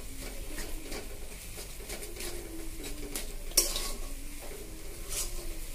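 Steel spatula scraping and clinking against an aluminium kadai while stirring a dry, crumbly fish-and-potato filling. There is a run of irregular scrapes and taps, with one sharper clank about three and a half seconds in.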